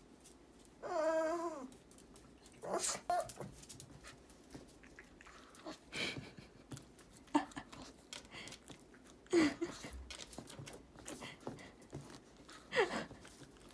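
A dog whining in short, wavering cries: one longer cry about a second in and a few brief ones later, with scattered light clicks and knocks.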